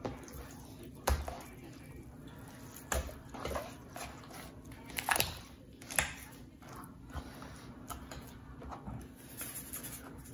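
Hands handling a raw spatchcocked chicken on a plastic cutting board: wet squishing with several scattered thumps as the bird is pressed flat and turned over.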